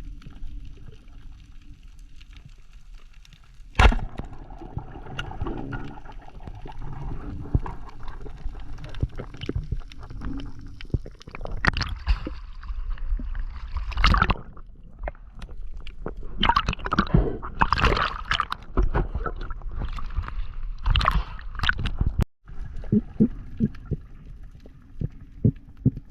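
Sea water sloshing and gurgling around the camera in irregular surges. A sharp knock comes about four seconds in, and the rushes of water grow busier in the second half.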